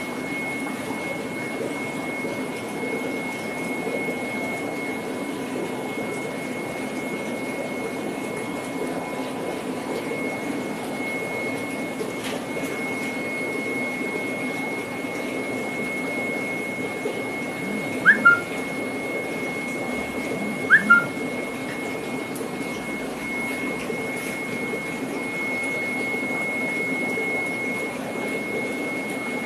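Steady hum and hiss of fish-tank pumps and water circulation, with a thin high whine running under it. Two short rising chirps stand out a few seconds apart, just past the middle.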